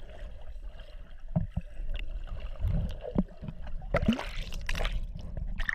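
Sea water sloshing and gurgling, heard from just below the surface, with a low rumble and scattered splashes.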